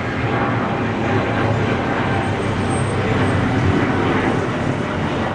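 Boeing 777-300ER's two GE90 turbofan engines at takeoff thrust as the airliner climbs out: loud, steady jet noise.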